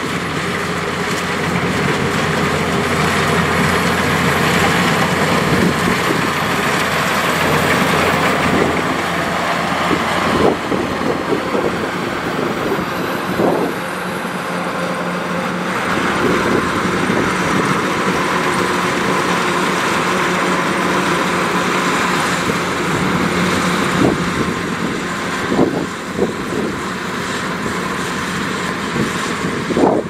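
Kubota DC105X combine harvester running while it cuts rice: a steady diesel engine drone with a few short knocks.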